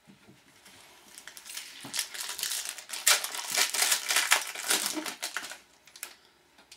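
Foil wrapper of a hockey card pack being torn open and crinkled in the hands: a dense crackling that lasts about four seconds, starting about a second in and dying away shortly before the end.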